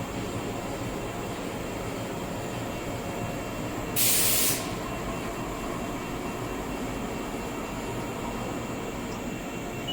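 Steady rumbling hum of machinery and ventilation on a shop floor. About four seconds in, a single sharp hiss of air lasts about half a second and cuts off.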